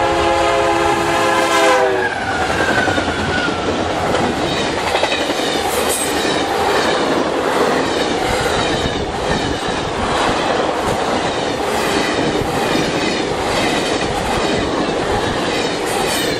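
Union Pacific diesel locomotive's horn sounding a loud chord that drops in pitch as the locomotive passes, about two seconds in. Then the Amtrak passenger cars run past at speed with a steady rhythmic clickety-clack of wheels over the rail joints.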